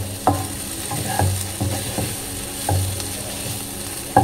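Wooden spatula stirring a paneer and vegetable stir-fry in a nonstick wok, scraping and knocking against the pan about once a second over the sizzle of frying.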